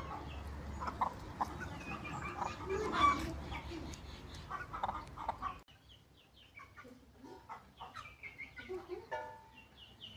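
Aseel chickens clucking, with many short high chirps between the clucks. A low rumble under the calls stops abruptly about halfway through, leaving the clucks and chirps quieter.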